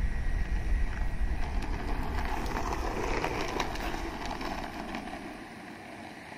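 Skateboard wheels rolling over an asphalt road: a rough, noisy rumble with a few small clicks, fading as the rider rolls away. Low wind rumble on the microphone mixes in and dies down after about five seconds.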